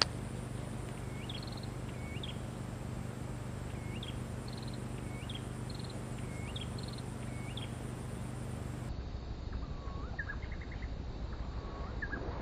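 Bird calling over and over, each call a short rising whistle ending in a quick trill, about one a second, over a steady low hum; about three quarters of the way through the calls come lower.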